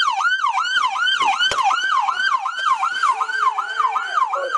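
Police patrol car's electronic siren in yelp mode, its pitch sweeping rapidly up and down about four times a second. It cuts off at the very end.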